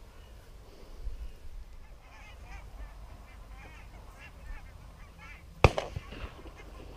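Wild geese honking in a flock, many short calls overlapping, thickest in the middle. Late on comes a single sharp knock, the loudest sound.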